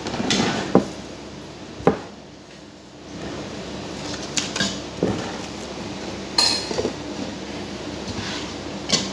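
Eating utensils clinking and scraping against dishes during a meal, with several separate sharp clinks and one short scrape near the end.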